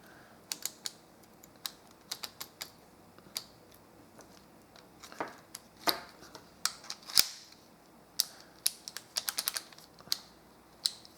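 Number dials of a 5-digit combination cable bike lock being turned by hand, clicking at each detent in irregular runs of sharp clicks while a new combination is set.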